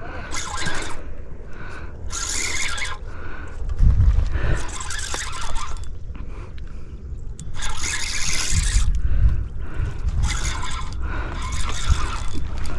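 Lake water washing against the rocky shore in repeated surges about a second long, with wind rumbling on the microphone.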